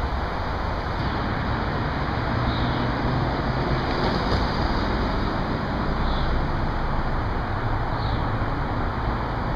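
Steady, loud outdoor background noise, a low rumble with hiss, with a small bird chirping faintly about every two seconds.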